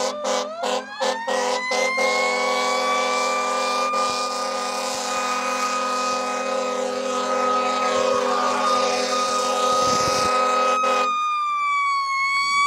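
A siren winding up in pitch over about two seconds, then holding a steady wail that starts to fall near the end. A steady lower drone runs underneath and cuts off abruptly about eleven seconds in.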